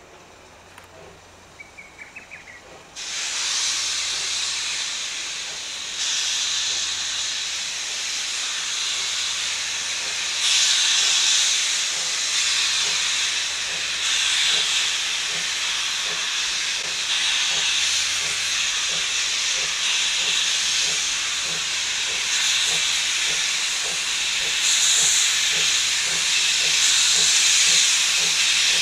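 JR East class C57 steam locomotive letting off steam at departure: a loud, steady hiss that starts suddenly about three seconds in and grows louder in steps. Faint bird or insect chirps are heard before it.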